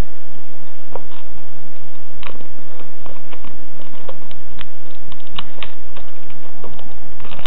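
Scattered light clicks and crinkles of hands handling an iPod touch and its clear plastic film and packaging, over low rumbling handling noise on the microphone.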